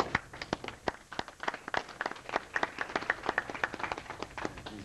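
A small audience applauding: separate hand claps from a few dozen people rather than a dense roar, thinning out near the end.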